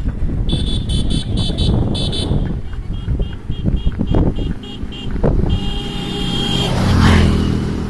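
A vehicle's electronic horn beeps repeatedly, about four short beeps a second, then a fainter run of beeps and one longer beep. A motor vehicle then passes close by, loudest about seven seconds in, over a steady low rumble.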